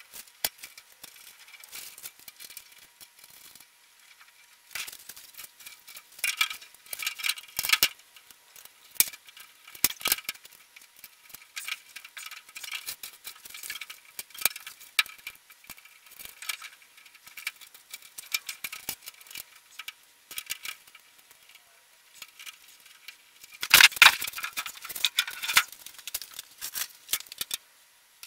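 Rapid, sped-up rattling and clinking of sheet-steel panels, bolts and hand tools while a Central Pneumatic media blast cabinet is assembled, in irregular bursts of clatter with the loudest burst about 24 seconds in.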